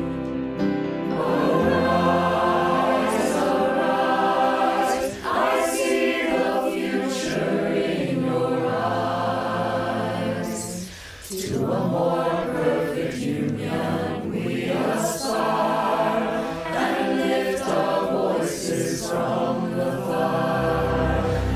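Mixed choir of many voices singing together in sustained notes, a virtual multitrack chorus recording, with a short break in the singing near the middle before the voices come back in.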